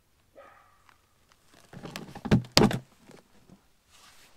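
New trailer brake drum being pushed onto its axle spindle: a few heavy metal knocks and clunks about two seconds in, two of them loudest and close together.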